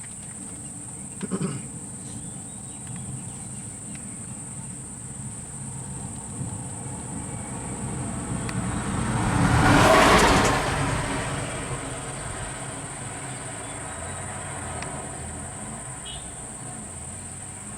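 A vehicle passes by, growing louder to a peak about ten seconds in and then fading away, over a steady high-pitched drone of insects.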